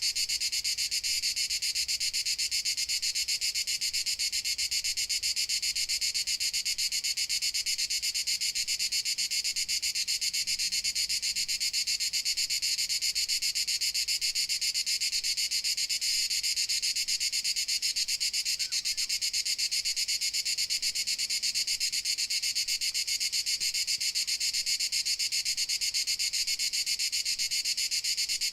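A dense, unbroken chorus of crickets: a steady, rapidly pulsing high-pitched buzz that never pauses.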